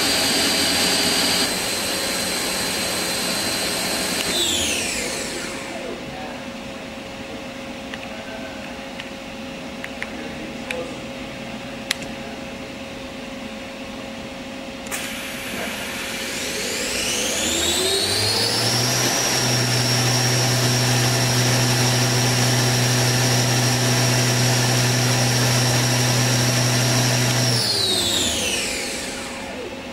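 Fadal 914-15 vertical machining center spindle whining at speed and spinning down a few seconds in. After a quieter stretch with a couple of clicks, it spins back up with a rising whine and runs steadily at speed with a low hum, then winds down again near the end.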